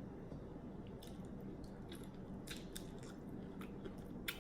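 A person chewing food close to the microphone, with a scatter of small wet mouth clicks and lip smacks, one a little louder near the end.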